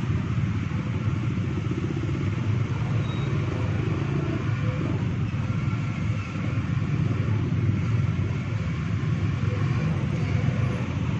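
Traffic noise from many small motorcycles and a few cars, engines running as they move across the railway tracks. A steady mixed rumble with no single event standing out.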